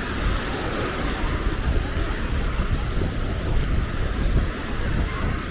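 Wind buffeting the microphone in a low, uneven rumble over the wash of small waves breaking on the shore.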